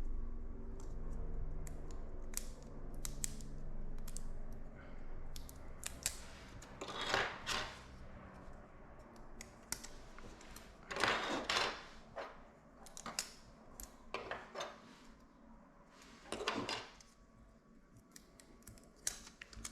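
Plastic hair-clipper guards clicking and clattering as they are handled, with several louder bunches of clicks. A low steady hum fades out about halfway through.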